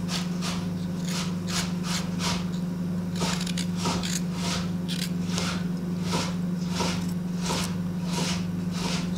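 The back of a small kitchen knife scraping the skin off a piece of fresh ginger root, in short repeated strokes about twice a second, over a steady low hum.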